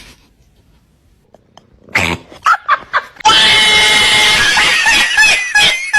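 A house cat making a few short sounds, then a loud, harsh, drawn-out cry lasting about three seconds.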